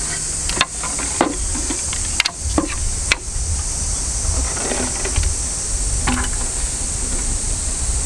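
Wooden clicks and knocks as a slatted walnut folding table is unfolded and its legs and top are set in place, a handful of sharp raps in the first few seconds and one more later, over a steady high hiss.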